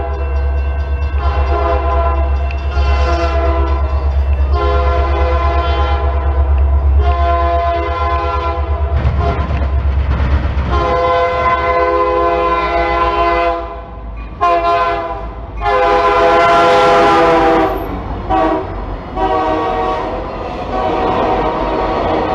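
Diesel locomotive's multi-chime air horn sounding a series of long and short blasts as the train approaches. The lead locomotives then pass close with a loud rush of noise, and the railcars roll by clattering on the rails.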